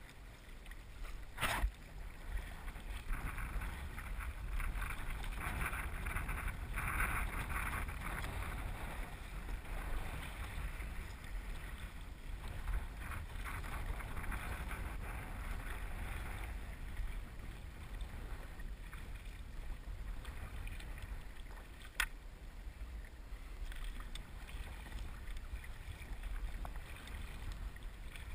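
Double-bladed kayak paddles dipping and splashing as a tandem kayak is paddled along, over a steady low rumble of wind on the microphone. Two sharp knocks stand out, one near the start and one about three quarters of the way through.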